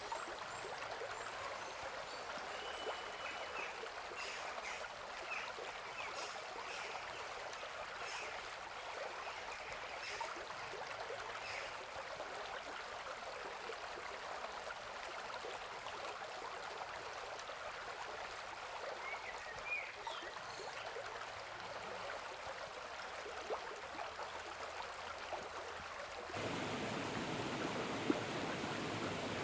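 A river running steadily over rocks, with faint small ticks and chirps above it. Near the end the rush of water gets louder and fuller.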